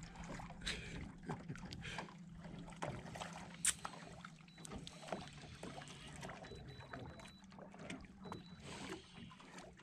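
Faint handling noise in an inflatable boat as a spinning reel is wound in against a hooked fish: irregular small clicks and knocks, with water against the hull, over a low steady hum.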